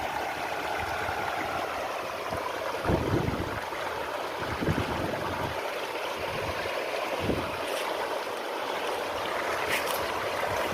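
Swollen monsoon river in flood rushing steadily, with a few low thumps on the microphone.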